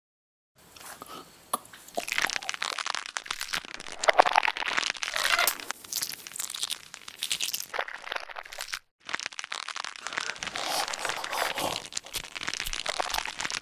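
Dense crunching and cracking sound effect, the foley for a contorted body crawling across a carpet, thick with sharp cracks and crackles. It cuts out briefly about two-thirds of the way through.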